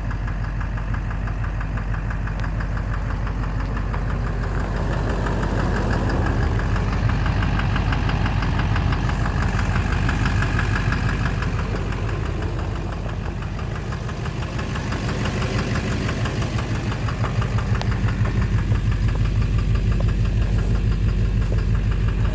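Duramax LMM 6.6-litre V8 turbodiesel running with a steady, rhythmic knock, a little louder about a quarter of the way in and again near the end. The owner cannot yet place the knock and suspects an injector, a cracked flexplate or the bottom end.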